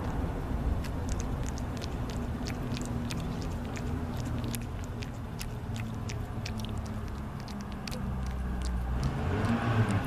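A cat chewing and licking soft boiled chicken skin: many small, wet, irregular clicks of the mouth and tongue, several a second. Beneath them runs a steady low rumble.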